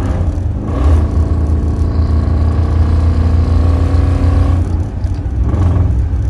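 1968 Camaro's engine running under way through its chambered exhaust, heard from inside the car. The drone holds steady, with brief dips in loudness about half a second in and again near the end.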